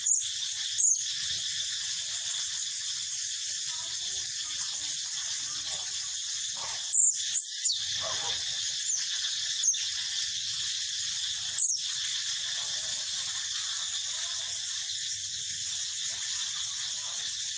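Steady high-pitched insect chorus, broken by a few short, sharp squeaky animal calls: two near the start, a cluster around the middle with one sliding down in pitch, and one more a few seconds later.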